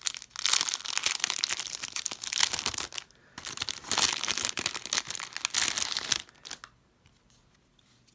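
Plastic card team bag crinkling and rustling as it is handled and opened to get the cards out, in two long stretches with a short break about three seconds in.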